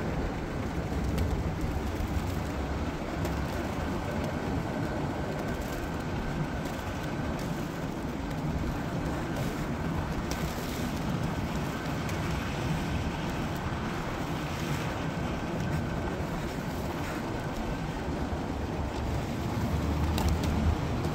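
A vehicle driving slowly over lake ice, with a steady low engine and tyre rumble and a few faint ticks.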